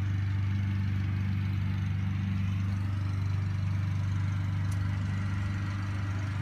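A motor running steadily with an even, low hum that does not change.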